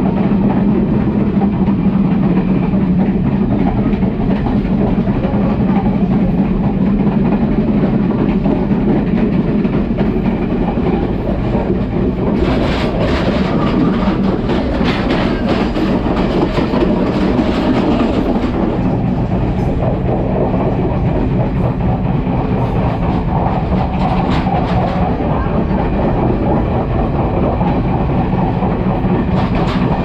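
Sri Lanka Railways Class S11 diesel multiple unit running, heard at the gangway between two coaches: a steady rumble of wheels on rails with the clickety-clack of rail joints. From about twelve to eighteen seconds in, and again near the end, the steel gangway floor plates rattle and clatter sharply.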